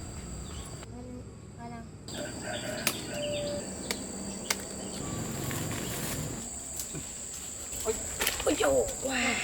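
Insects chirping in a steady high-pitched drone, with scattered clicks and a few short calls or voices near the end.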